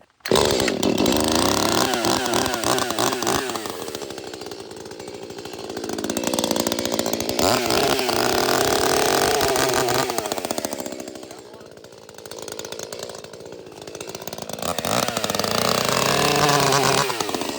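Ported Echo CS-310 two-stroke chainsaw running, revved up and eased back several times while it warms up and scores marks into a log's bark. It spends three stretches at high revs, dropping to lower revs twice in between.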